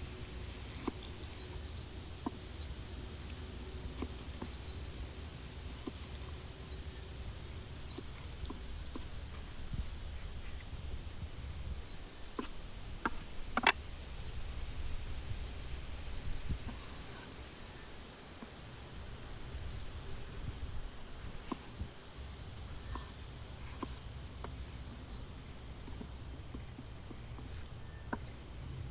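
Forest ambience: short rising high chirps repeat roughly once a second over a steady high-pitched insect drone and a low rumble, with scattered light clicks and one sharper click about halfway through.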